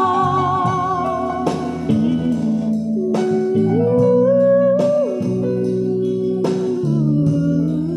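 Instrumental break of a slow love ballad played back through a pair of Creative S-700 mini speakers: a lead melody that wavers and slides in pitch over sustained chords, with occasional drum hits.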